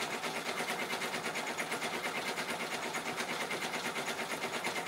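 Multi-needle embroidery machine stitching at about 1,000 stitches a minute, near its full speed: a steady, fast, even clatter of needle strokes.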